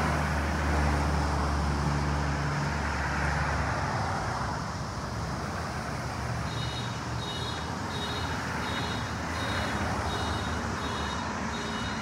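Street traffic: a large vehicle's engine rumbles close by for the first few seconds, then fades into steady road noise. From about halfway through, a high electronic beep repeats evenly, a little under twice a second.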